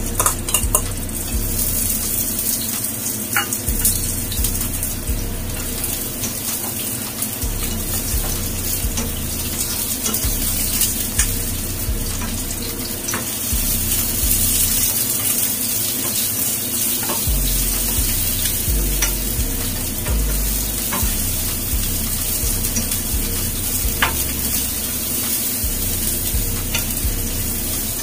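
Garlic, shallots and chilli sizzling as they fry in hot oil in a frying pan, with a steady hiss and occasional sharp little clicks as more pieces are dropped in.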